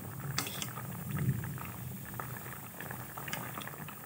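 Banana flower, potato, taro and tomato boiling in a metal wok: steady bubbling with many small pops.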